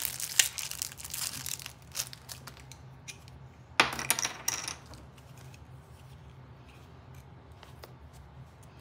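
Packaging crinkling and tearing as a new pair of thread snips is opened, with a loud, sharp crackle lasting about a second near the middle.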